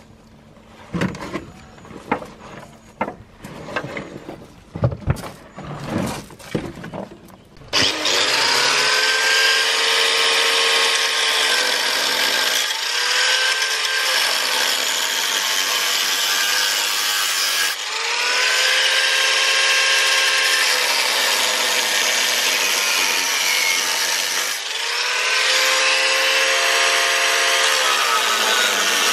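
Scattered knocks and clatter, then about eight seconds in an angle grinder with a thin cutting disc starts cutting into the steel body panel. Its whine rises and falls in pitch several times as the cut goes on.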